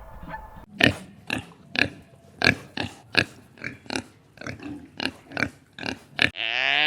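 An animal grunting in a series of short, sharp calls, about two a second, followed near the end by one long, drawn-out bleat-like call.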